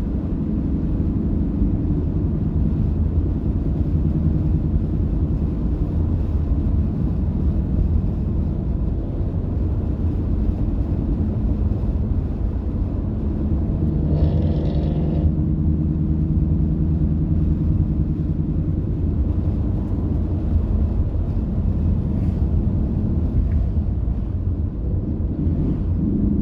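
A car driving at a steady pace: a constant low engine and road rumble with no revving. About halfway through, a brief higher-pitched sound rises over it.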